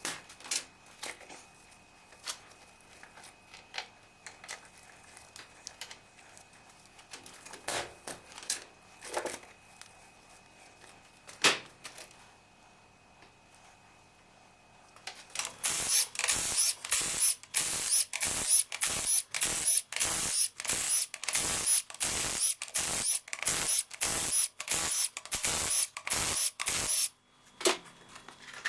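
Hand-tool work on a truck diesel engine being stripped down: scattered light metallic clicks and knocks at first, then about halfway through a steady run of scraping or ratcheting strokes, about two a second, that stops shortly before the end.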